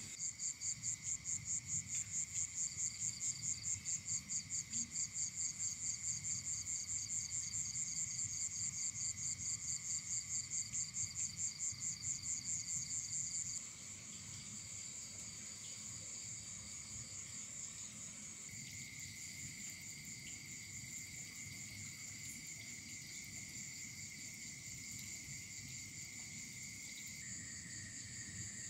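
Insects chirring in chorus: a high trill pulsing about three or four times a second stops about halfway through, leaving a steadier, quieter high trill over a lower continuous buzz.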